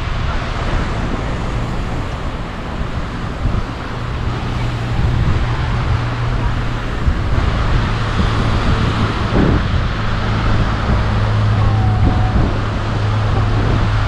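Wind rumbling on the microphone, with a steady low engine hum that grows a little stronger in the second half.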